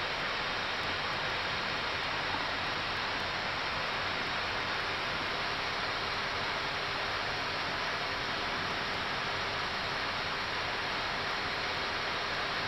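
Steady, even hiss inside an Airbus A319 cockpit in flight: the rush of air around the nose and the air-conditioning.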